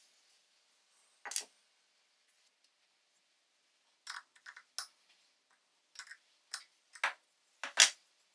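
Small metal parts of a vintage brass soldering-iron blowtorch clicking and clinking as it is taken apart: a single click about a second in, then scattered clinks in small clusters, the loudest near the end.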